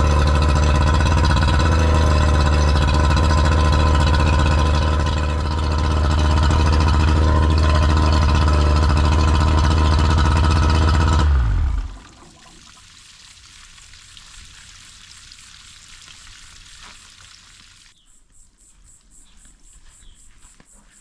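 Outboard motor running steadily on flush muffs during a test run after a new OEM water-pump impeller was fitted. It is shut off about eleven seconds in, leaving only a faint steady hiss.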